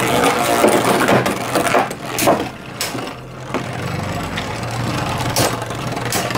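Two Beyblade Burst spinning tops, Judgement Joker and Turbo Spriggan, spin in a hard plastic stadium, clacking sharply against each other again and again as they collide.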